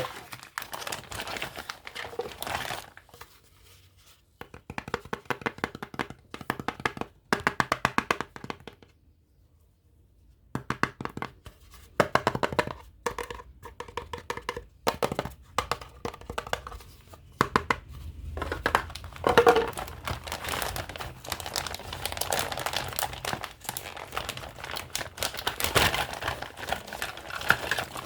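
Packaging crinkling and tearing as a toy set is unwrapped, with many quick clicks and light knocks; the handling stops for a second or two near the middle.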